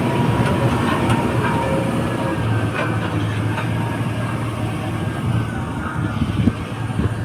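Heavy diesel engine of construction machinery running steadily, with a few sharp knocks about a second in and around three seconds in.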